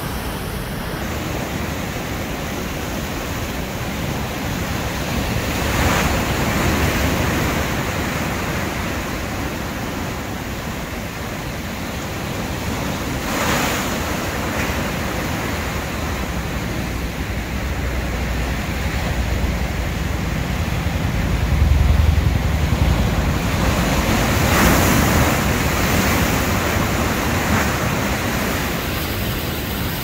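Heavy sea surf breaking over a rocky shore: a continuous wash of churning foam, with a few louder crashes as bigger waves hit the rocks.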